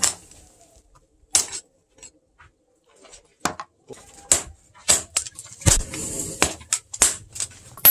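Hand hammer striking a hot steel knife blade on a steel post anvil: a few sharp, widely spaced blows at first, then blows coming faster and irregularly through the second half.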